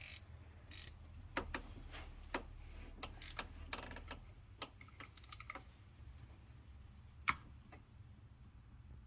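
Scattered light metallic clicks and taps of hand tools on the bolts of a Subaru timing belt tensioner bracket, some in quick runs, with a sharper click about seven seconds in.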